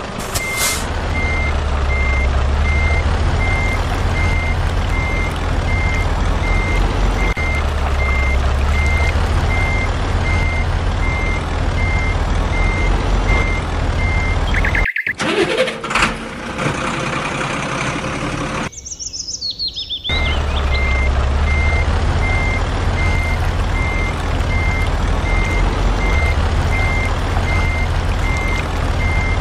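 Low truck engine rumble with a reversing alarm beeping steadily about twice a second. Both cut out for a few seconds around the middle, where a short high chirp is heard, then resume.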